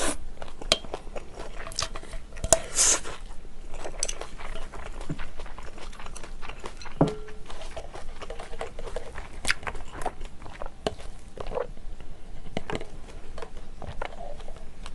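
Close-miked eating of stir-fried yakisoba noodles: a slurp of noodles, then chewing with many small wet mouth clicks, and occasional light clinks of tableware.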